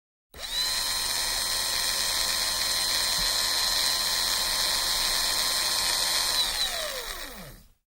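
A small high-speed motor whining steadily, spinning up about a third of a second in and winding down with a falling pitch near the end.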